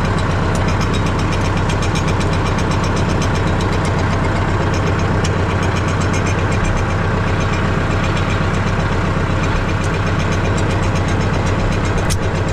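Armatrac 1104 Lux tractor's diesel engine idling steadily while the tractor stands stopped, with a single sharp click near the end.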